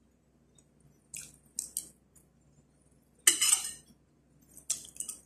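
Metal spoon and fork clinking and scraping against a ceramic plate while scooping up rice: several short, sharp clinks, the loudest a little past the middle.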